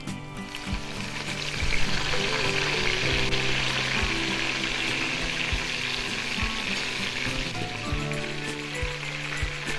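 Fresh mint leaves sizzling as they fry in hot oil and ghee in an aluminium pot: a steady crackling hiss that grows louder about two seconds in.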